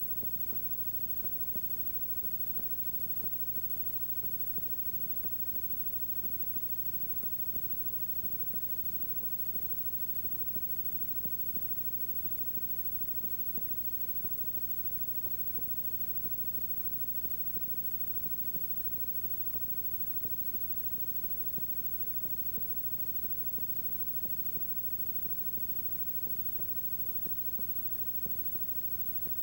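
Steady electrical hum and hiss with faint irregular crackles, and no sound from the field: the noise floor of an old videotape copy with no game audio.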